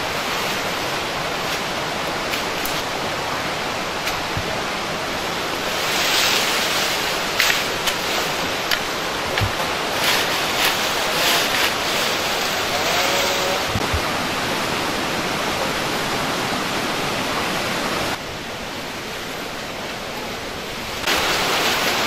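Bay laurel branches being cut with a sickle and handled: leafy rustling with sharp snaps and cracks, densest between about 6 and 14 seconds, over a steady rushing background noise.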